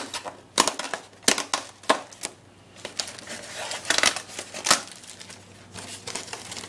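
Packaging being handled as a white insert tray is lifted out of a cardboard box: irregular crinkling and rustling with several sharp clicks and snaps.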